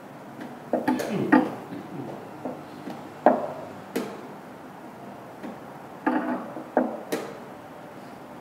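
Wooden chess pieces clacking onto a wooden board during fast blitz play, with pieces captured and lifted off, along with sharp clicks of chess clock buttons being hit between moves. The clacks come in quick flurries about a second in and again around six to seven seconds, with single sharp clicks between.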